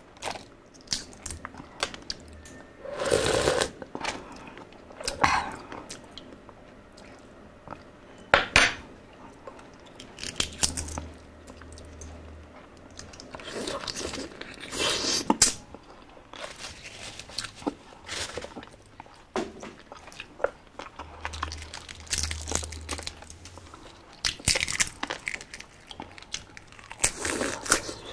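Close-miked eating of a balut topped with chopped chilies: biting and chewing, with crackling and clicking as the eggshell is peeled and picked. Sharp clicks run throughout, with several louder bursts along the way.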